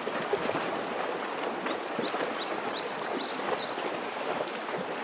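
Water splashing and rushing as a herd of horses wades through a shallow river, with a few short high chirps around the middle.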